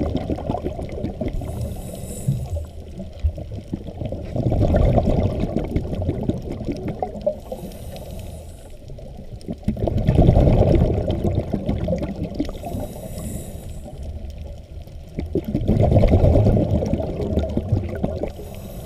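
A scuba diver breathing through a regulator, heard underwater: a short high hiss on each inhale, then a longer, louder rush of exhaled bubbles, repeating about every six seconds.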